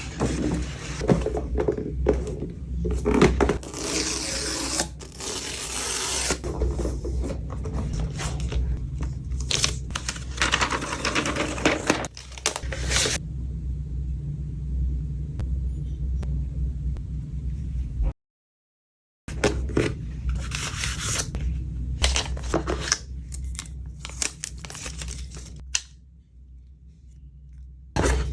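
An iPad box and its paper packaging being opened by hand: paper and cardboard tearing and scraping, with scattered clicks and rustles. The sound drops out completely for about a second roughly two-thirds of the way through.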